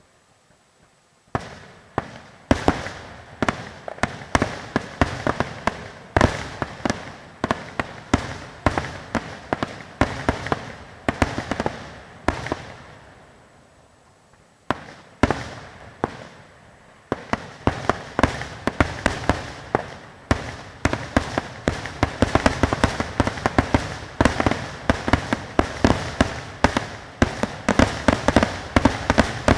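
Fireworks bursting in rapid, overlapping bangs. After a short lull in the middle, the bangs come back denser and faster.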